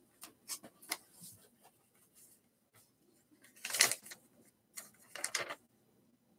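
Paper rustling as a letter is handled and unfolded: light scattered crinkles, then two louder rustles about four and five seconds in.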